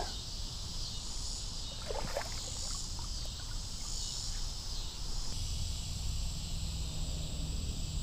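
Faint water sloshing in a shallow creek as a small largemouth bass is slipped back in, over a steady high insect drone and a low steady rumble.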